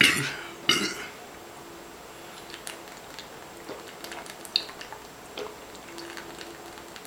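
A man burping twice, less than a second apart, from drinking beer, the first burp the loudest; then a scatter of faint small clicks and taps.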